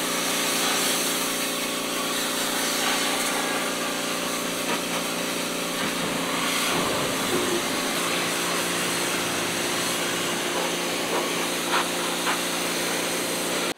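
Pressure washer running: a steady motor hum under the hiss of the water jet spraying onto a tractor, with the motor's tone shifting slightly about halfway through.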